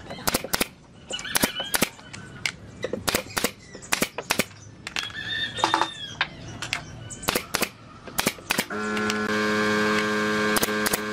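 Hand woodworking: irregular sharp knocks and taps of wooden pieces being struck and handled, with two short chirps. About nine seconds in, an electric power tool starts up and runs with a steady hum.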